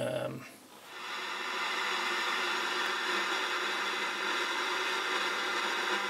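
FM inter-station static from a 1973 Universum flip clock radio's small speaker: a steady hiss that comes up about a second in as the set is tuned, the sign of weak FM reception.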